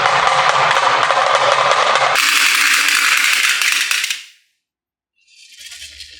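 A dense, rapid clatter of many marbles rolling and knocking down a HABA wooden marble run. It changes abruptly about two seconds in, dies away about four seconds in, and after a brief silence a fainter rattle starts near the end.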